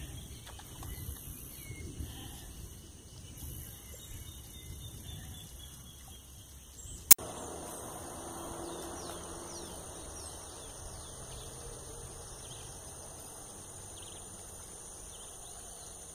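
Pond-side outdoor ambience: a steady faint background hiss with insects buzzing high and a few faint bird chirps. A single sharp click sounds about seven seconds in, where the recording cuts.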